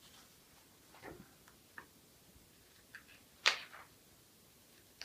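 Pages of a book being turned and leafed through: a few short paper rustles and flicks, the sharpest about three and a half seconds in.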